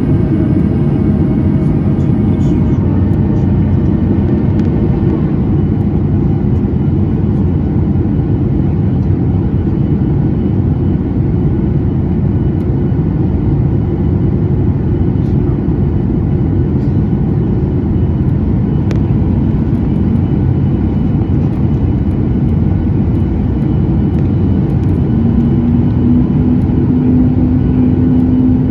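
Steady cabin roar of a Boeing 737 MAX in flight, heard from a window seat: the hum of its CFM LEAP-1B engines mixed with the rush of air past the fuselage. About 25 seconds in, a steady engine tone comes up above the roar.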